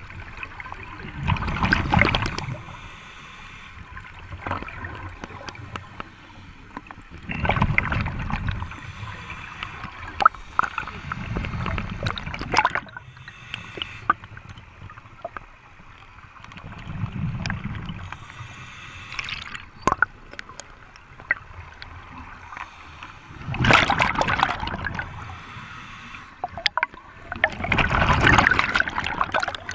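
Scuba diver breathing through a regulator underwater: six loud bursts of exhaled bubbles, about one every four to six seconds, with a quieter hiss and scattered clicks between them.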